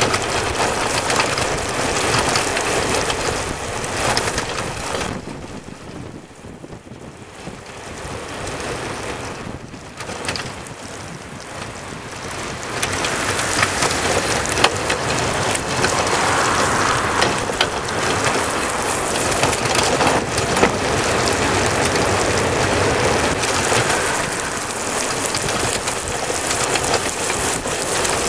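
Riding noise from a Python recumbent cargo bike and its trailer moving fast on asphalt: wind rushing over the microphone with tyre and rattle noise underneath. It drops for a few seconds about a third of the way in, then comes back louder and steady.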